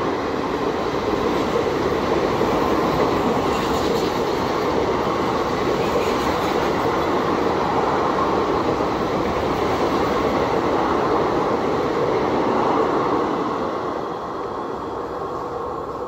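Passenger coaches of an express train running past on the rails: a steady rumble and rattle of wheels on the track, fading as the last coach goes by near the end.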